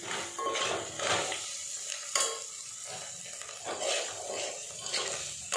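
Metal spoon stirring and scraping masala in an aluminium pot, irregular scrapes and clinks against the pot about once or twice a second, with a sharp clink about two seconds in, over a faint sizzle of frying.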